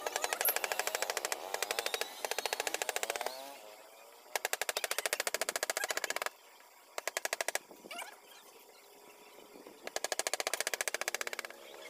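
Wooden mallet driving a carving chisel into a wooden board with rapid light taps, in five quick runs separated by short pauses.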